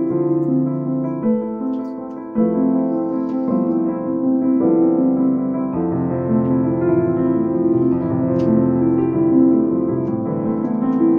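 Piano music, its notes changing every second or so.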